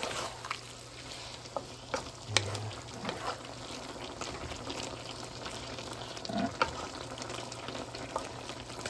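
Pork sizzling in a pan in the juices it has released, being stirred and separated with a utensil that clicks and scrapes against the pan now and then.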